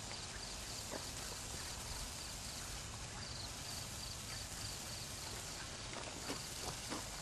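Hand-held sparkler burning: a steady fizzing hiss with occasional sharp crackles, one about a second in and several close together near the end.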